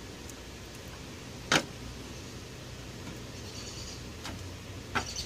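Low steady background noise with one sharp tap about a second and a half in and two softer taps near the end.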